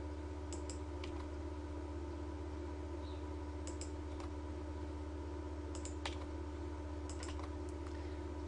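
Computer mouse clicks and keyboard key presses, scattered and often in quick pairs, as lines are selected and deleted, over a steady low electrical hum.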